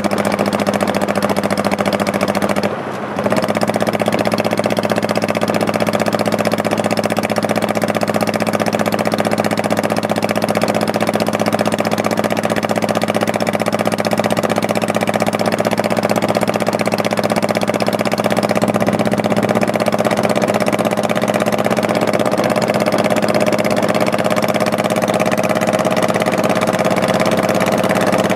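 Honda Shadow Spirit 1100's V-twin engine running steadily while riding, with a brief drop in sound about three seconds in and the pitch creeping up slightly near the end.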